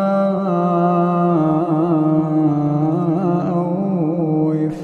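A man's melodic Quran recitation: one voice drawing out long held notes with ornamented turns in pitch, with a short break for breath near the end.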